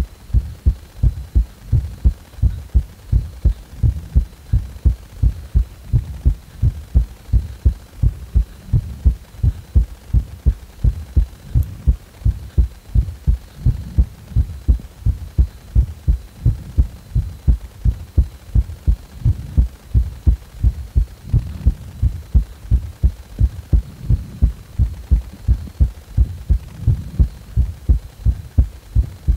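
A person's heartbeat recorded at the chest: low, evenly spaced thumps in a steady, quick rhythm.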